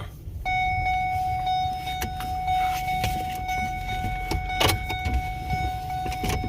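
A vehicle's steady electronic warning tone sounds for several seconds, from about half a second in until it cuts off near the end. A few sharp clicks and knocks and a low rumble sit beneath it.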